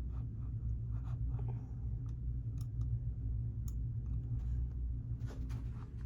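Scattered light clicks and taps, like keyboard keys and mouse buttons being pressed, over a steady low hum, with a small cluster of clicks near the end.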